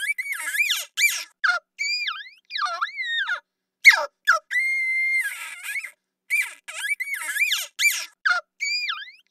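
A high-pitched monster sound effect: a run of short squeals and chirps that swoop up and down in pitch, with a held whistling squeal and silent gaps between them; the same sequence plays again partway through, as a loop.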